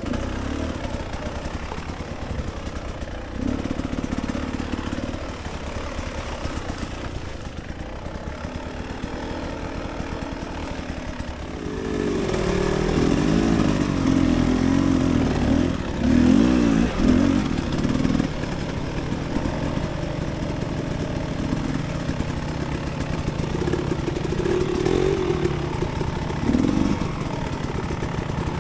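Dirt bike engine running at low trail speed with uneven throttle. It revs up and down harder for several seconds about halfway through, and briefly again near the end.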